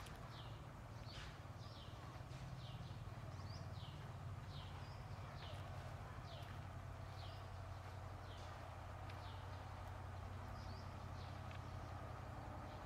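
A bird calling over and over: short chirps that slide down in pitch, about two a second, over a steady low hum.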